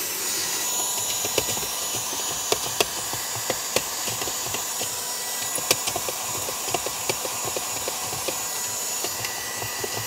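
Brigii MX30 cordless handheld vacuum with a brushless motor, running steadily: rushing air with a constant high whine. Scattered sharp clicks and ticks come through as it picks up debris from the console.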